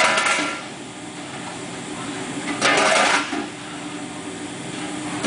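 Automated skid indexer cycling: a steady motor hum, broken by a short, loud burst of noise roughly every two and a half seconds as the machine steps the pallet along.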